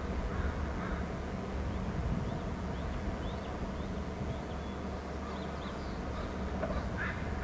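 Outdoor ambience: a steady low rumble with faint, short high-pitched bird chirps scattered through it.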